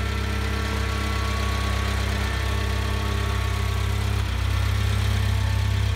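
A 1992 Talbot Express camper van's 2-litre petrol engine idling steadily, growing slightly louder about four seconds in.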